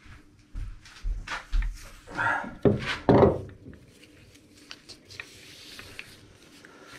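Heavy three-jaw lathe chuck being handled onto the lathe's threaded spindle nose: a run of metal knocks and scrapes, loudest a few seconds in, then fainter rubbing as it is worked on.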